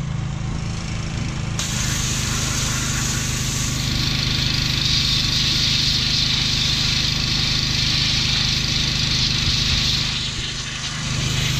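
Pressure washer blasting water at a greasy engine block to rinse off degreaser: a steady, loud hiss of spray that starts about a second and a half in, over the steady hum of an engine running.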